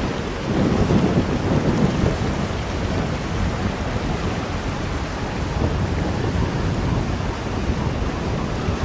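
Wind buffeting the camera microphone, a steady low rumbling noise that flutters in level.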